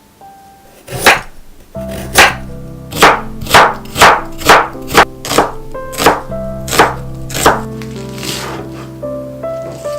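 Kitchen knife chopping food on a cutting board: about a dozen sharp strokes, roughly two a second at the busiest, over background music that comes in about two seconds in.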